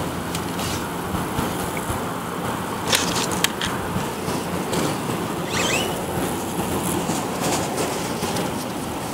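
Steady outdoor background noise with no speech. Two sharp clicks come about three seconds in, and a brief high squeak a little later.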